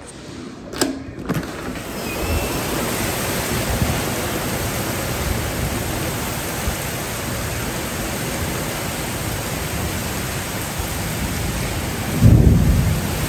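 Heavy rain pouring steadily, with a low rumble of thunder swelling up near the end. A couple of sharp clicks in the first second or so.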